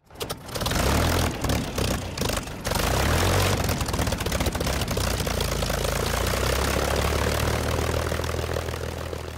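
Propeller aircraft engine running, uneven for the first few seconds and then steady, fading out near the end.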